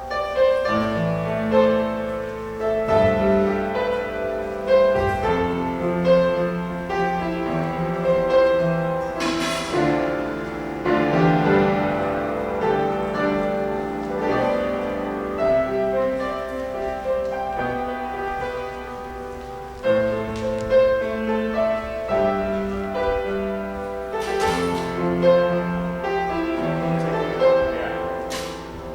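Piano playing an instrumental piece with chords and a melody line.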